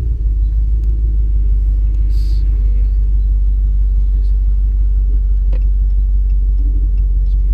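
A 5.7 L Hemi V8 with a muffler delete and Y pipe, its exhaust giving a loud, steady low rumble heard from inside the cab with the windows half down.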